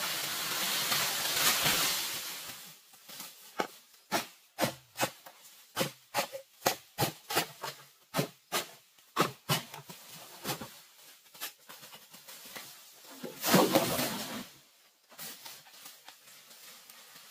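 Bamboo leaves rustling as a culm comes down through the canopy, then a run of sharp chops of a blade into bamboo, about two a second, and near the end another short burst of leaf rustling.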